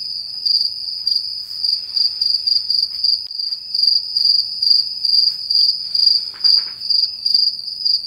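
Cricket chirping steadily, a high, even chirp repeated two to three times a second.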